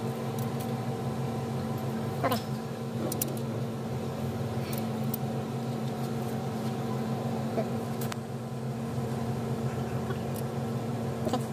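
Light metallic clicks of a ring wrench and screwdriver working the valve rocker locknuts and adjusting screws, a few scattered ticks, over a steady mechanical hum.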